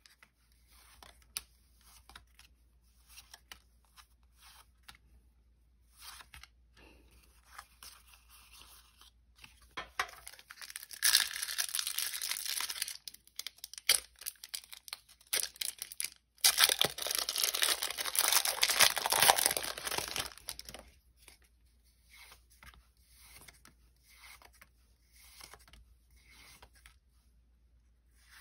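Foil Pokémon booster pack wrappers being torn open and crinkled, in two longer stretches of tearing and rustling in the middle. Light clicks and rustles of cards being handled come before and after.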